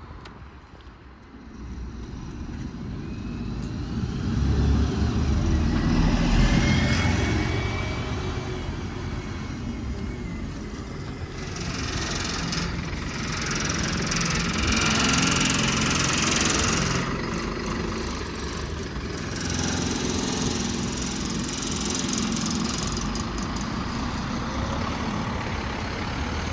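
Diesel buses, an Alexander Dennis Enviro400 MMC double-decker and a Scania OmniLink, running past one after another. The sound swells as each comes close, with a faint rising whine a few seconds in.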